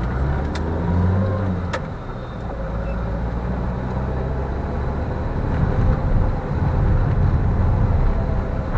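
Car engine and road noise from inside the cabin while driving, a steady low rumble that grows somewhat louder about six seconds in. Two short sharp clicks come in the first two seconds.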